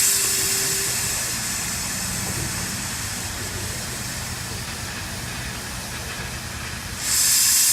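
A steam locomotive venting steam: a loud hiss that slowly dies away, then a second loud burst of hiss about seven seconds in.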